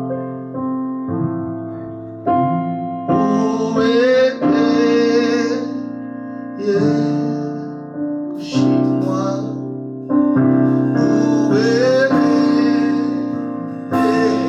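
Slow worship music on a keyboard: sustained chords struck one after another, each fading before the next, with a singer holding long wavering notes over them in three stretches.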